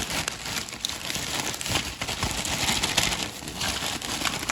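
Plastic packaging, likely bubble wrap, crinkling and rustling continuously as it is handled, with small clicks and taps throughout.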